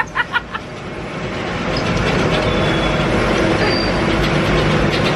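Hayride wagon rumbling and rattling along a bumpy farm track, with a couple of faint brief high squeaks.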